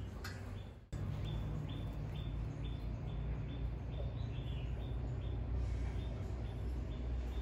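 A small bird chirping, short high calls repeated evenly about two or three times a second, over a low steady hum, with a brief break about a second in.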